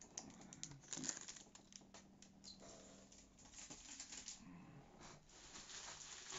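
Faint rustling and crinkling with scattered light clicks, busiest in the first second and again near the end: graded comics in hard plastic slabs and their packaging being handled.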